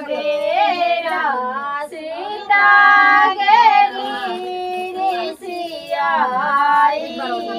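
Women singing a traditional Maithili wedding song together, high voices drawing out long, wavering notes.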